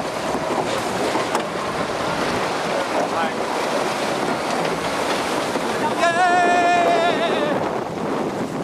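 Steady rushing noise of water or wind. About six seconds in, a held, wavering tone with overtones sounds for about a second and a half.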